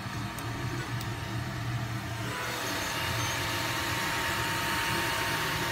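A filament 3D printer running mid-print: a steady mechanical hum with a thin high whine and fan hiss, growing louder about two seconds in.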